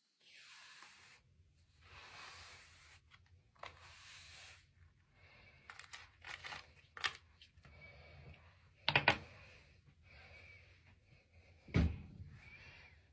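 Soft rustling swishes of long hair being handled and combed through with the fingers, with a few sharp clicks of handled objects, the loudest about nine seconds in, and a duller knock near the end. A faint low hum runs underneath.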